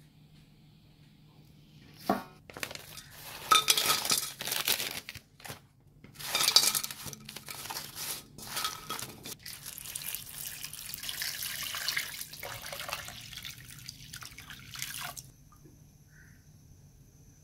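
A packet rustles and dried herbal soup spices clatter as they are tipped into a pot, in several short goes. Then water is poured steadily into the pot and stops suddenly near the end.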